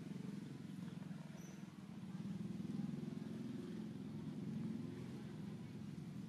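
A motor running steadily with a low rumble and a fast flutter.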